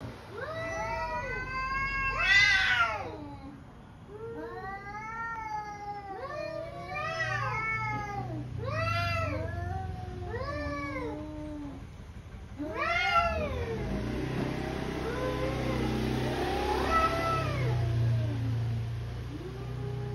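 Two domestic cats yowling at each other in an aggressive standoff: long, wavering caterwauls that rise and fall one after another and sometimes overlap, with louder, sharper cries about two seconds in and again around thirteen seconds. This is the threat display that comes before a cat fight.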